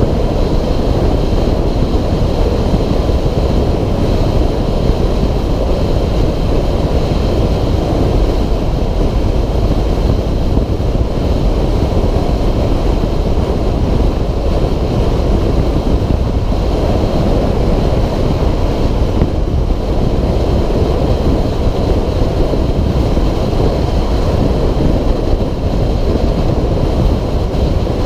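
Steady, loud wind rush over the microphone at highway speed, with a 2006 Suzuki DR650SE's single-cylinder four-stroke engine running at a steady cruise underneath.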